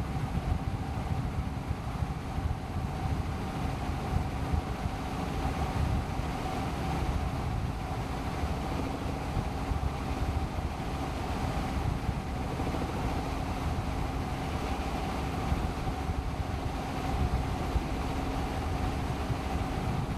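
Helicopter in steady flight: engine and rotor noise with a low, fluctuating rumble and a steady hum running through it, wind rushing over the microphone.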